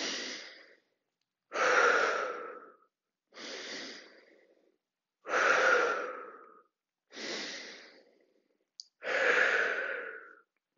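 A woman's paced, deliberate breathing as she holds an exercise: six separate inhales and exhales about two seconds apart, stronger and fainter breaths alternating.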